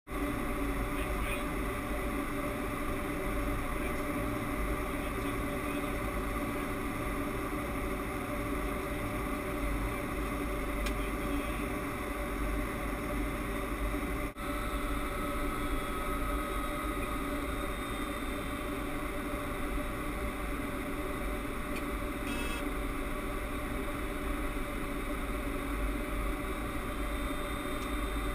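Steady cockpit noise of a Boeing 767 on approach: a constant rush of air and engine hum with steady whining tones. The sound drops out for an instant about halfway through.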